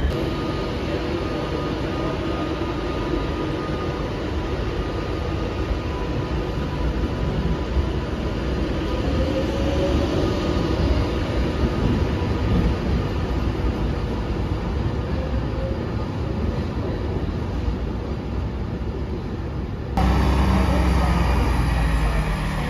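Electric trains at a station platform: a steady rumble and hum with a few faint whining tones. About 20 s in, the sound cuts to a Class 158 diesel multiple unit's engine running, a louder, deeper steady rumble.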